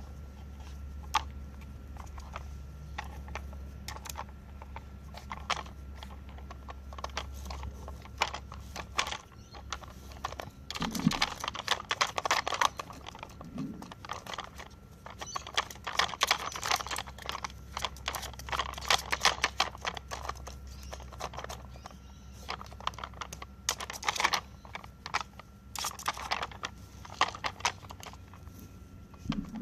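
Plastic clicking and rattling of a Nina Ottosson Dog Tornado puzzle toy as a sheltie puppy pushes its rotating layers around after treats. Scattered single taps, with busier runs of rattling about a third of the way in and through the second half.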